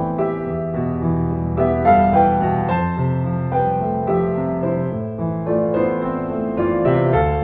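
Background music: a solo piano ballad, its notes and chords ringing on over one another.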